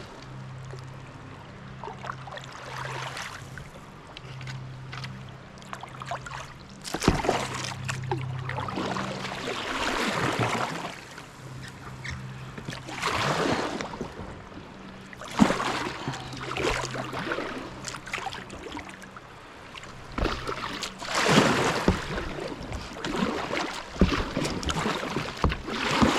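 Kayak paddle strokes in river water: a splashing swish every few seconds as the blades dip and pull, over a low steady hum.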